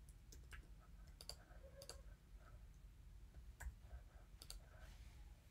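Near silence with a few faint, irregular clicks from a computer mouse and keyboard as a position tag is typed in.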